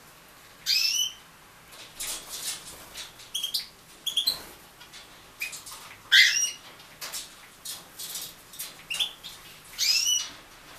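Aviary birds calling with short, sharply rising chirps, the loudest three about 1 s in, just after 6 s and near 10 s, mixed with brief rustles and flutters.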